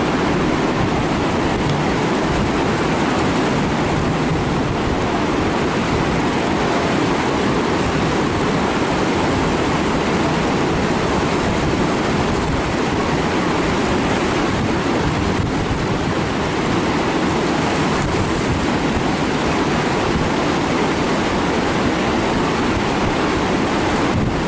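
Steady rush of whitewater river rapids, with wind buffeting the microphone.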